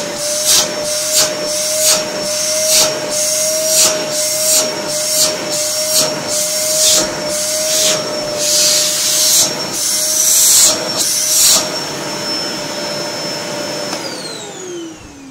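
Samsung SC4740 canister vacuum cleaner running on its newly fitted replacement motor, a steady whine over rushing air, with short surges of air roughly twice a second for the first twelve seconds or so. About fourteen seconds in it is switched off and the motor winds down, its whine falling in pitch.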